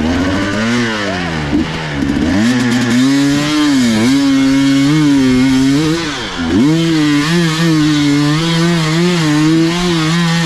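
Motorcycle engine revving under changing throttle. Its pitch climbs and drops several times, then holds high and wavering near the end.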